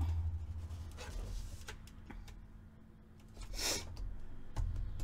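Sheet of paper rustling and sliding as it is laid on a paper trimmer and smoothed by hand, with one brief swish of paper about three and a half seconds in.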